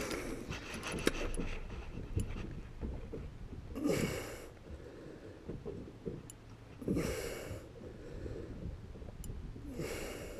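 A person breathing hard, with three loud exhales about three seconds apart. A quick run of clicks comes in the first two seconds.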